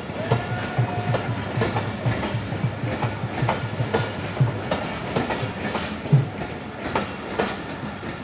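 Coaches of a departing passenger train rolling past at low speed, wheels clattering over the rail joints with a run of low thumps.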